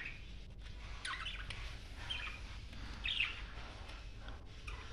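Budgerigars chirping softly: a handful of short, faint chirps spread over a few seconds.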